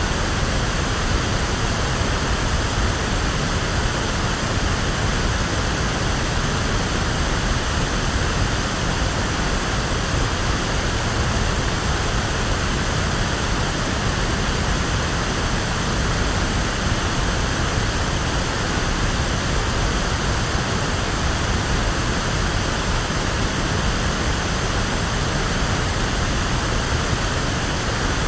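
Electronically generated pink noise: a steady, even hiss with a full low end, unchanging throughout.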